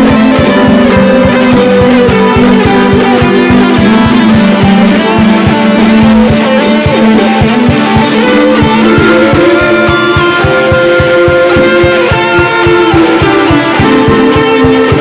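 Instrumental band music with guitar to the fore over a steady beat, played without singing.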